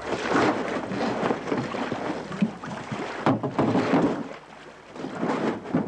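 A loaded canoe being launched and boarded: the hull and gear bump and knock, with two sharp knocks near the middle, over a noisy background.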